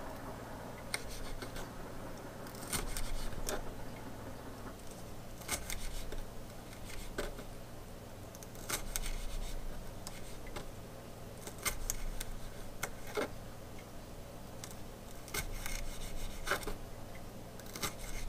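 Kitchen knife finely chopping green bell pepper on a wooden cutting board: irregular sharp knocks of the blade on the board, about one a second.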